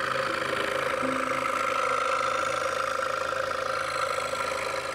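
DeWalt scroll saw running at a steady speed, its blade going up and down as it cuts a wooden board: an even mechanical whine.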